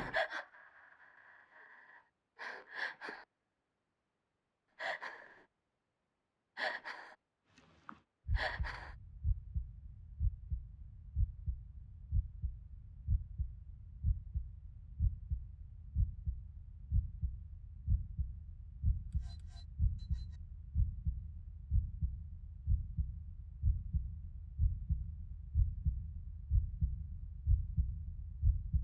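A frightened woman gasping and breathing hard in short bursts, several times over near silence. Then, about eight seconds in, a low heartbeat sound effect starts and thumps on steadily in lub-dub pairs.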